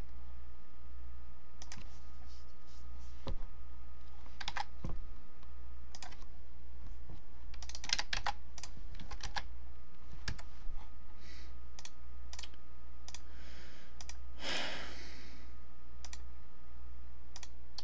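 Scattered clicks and key presses on a computer keyboard and mouse, some in quick clusters, over a steady low hum. A short rush of noise comes near the end.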